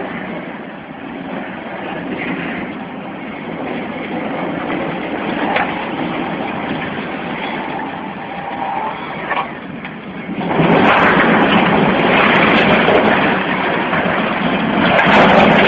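A steady rumble, then about ten seconds in a sudden loud, sustained crashing roar as a portal crane and the brick chimney it was pulling down collapse.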